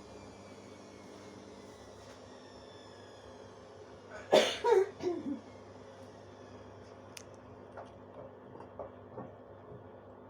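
Bosch washing machine at the end of its spin cycle, the drum coasting down: a steady hum with a high whine that slowly falls in pitch. About four seconds in, a loud, short sound drops in pitch, like a cough.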